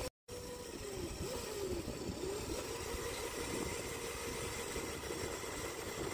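Hoverboard-powered electric go-kart driving on asphalt: a steady electric motor whine that dips and rises in pitch a few times in the first couple of seconds, then holds steady, over a low rumble.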